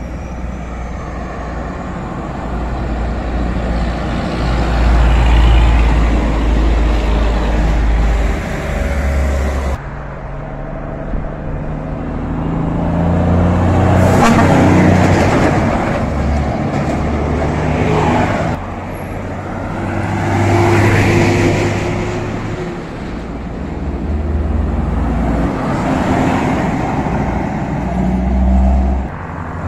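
Heavy diesel semi trucks passing close by one after another, engine drone and tyre noise swelling and fading with each pass-by, about four times.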